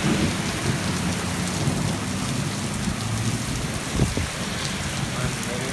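Heavy rain pouring steadily onto pavement in a thunderstorm, with a low rumble underneath and one short thump about four seconds in.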